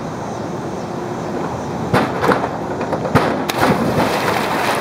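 Wind on the microphone over steady outdoor ambience, then from about two seconds in a run of sharp knocks from the springboard as a diver takes off, followed by a loud splash of his entry into the pool close to the microphone, with spray falling back.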